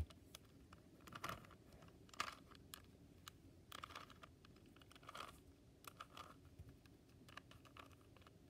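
A Rubik's Cube's plastic layers being turned by hand during the last moves of a solve: faint, irregular clicks and rattles, about one turn a second.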